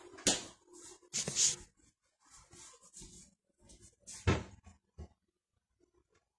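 A few short knocks and clatters in a small room. The loudest is a bump with rustling about four seconds in, as a phone is picked up and handled.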